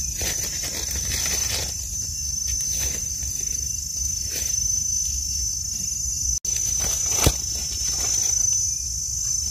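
Steady high-pitched drone of forest insects, with dry leaf litter rustling as hands dig and pull mushrooms from the ground, and one sharp snap about seven seconds in.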